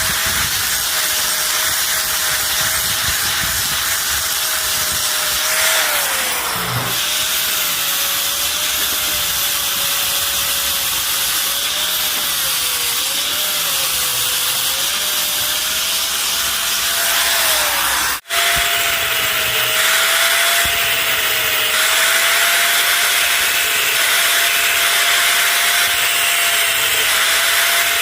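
Handheld electric power tool running on metal, a steady motor whine over a hiss. The whine wavers and sags in pitch now and then. About two-thirds of the way through, the sound cuts out for an instant and starts again.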